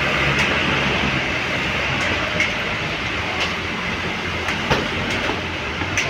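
Tour coach driving slowly past on a wet road: engine running low under a steady hiss of tyres on the wet surface, with scattered sharp clicks. No telolet horn sounds.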